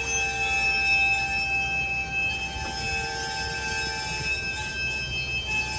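CSX freight train's cars rolling slowly past: a steady low rumble, with thin, steady high-pitched tones over it.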